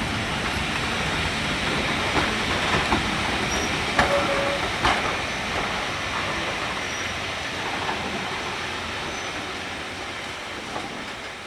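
Heritage steam-hauled train running along the track, a steady rumble with a few sharp clicks of wheels over rail joints, slowly fading away.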